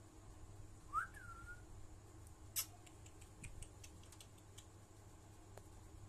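A single short whistle about a second in that rises sharply and then falls and levels off, followed by one sharp click and a few faint ticks.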